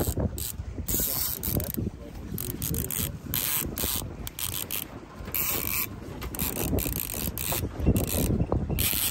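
A fishing reel being cranked in irregular bursts as an angler reels a hooked salmon toward the boat, with the reel's ratcheting clatter.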